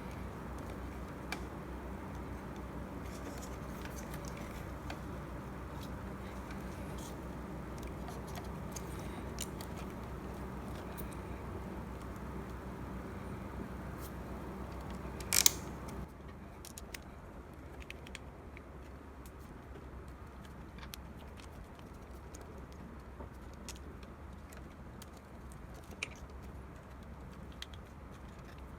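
Small clicks and light rattling of pump fittings and parts being handled while the espresso machine's pump is reassembled, with one sharp louder click about halfway through, over a steady low hum.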